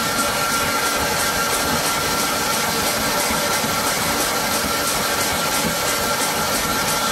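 A Will MZAK-Fa-H paper ruling machine from 1959 running reel-to-sheet at 110 m/min: a steady mechanical rush with a steady tone through it and a faint even beat of about three a second.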